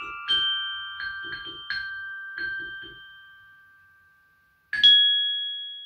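Glockenspiel played with two mallets: a quick run of struck metal notes ringing over one another, dying away after about three seconds. After a short pause, one final, loudest note is struck and left to ring out.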